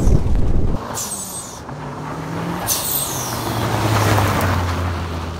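Mitsubishi Lancer Evolution VIII's turbocharged 4G63 four-cylinder engine as the car drives past on gravel. The engine note swells as it nears, about four seconds in, then eases off, with a couple of short high hisses along the way.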